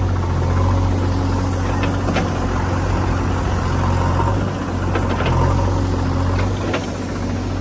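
Heavy diesel engine running steadily at a low, even speed, with several short sharp knocks or clanks scattered through it.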